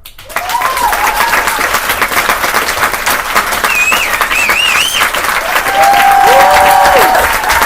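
An audience applauding with fast, dense clapping. A few voices call out high over it about halfway through, and another holds a long call near the end.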